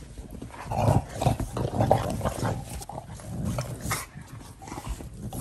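Shar-Pei dogs play-fighting, with dog vocal noises and scuffling in irregular bursts, loudest about a second or two in.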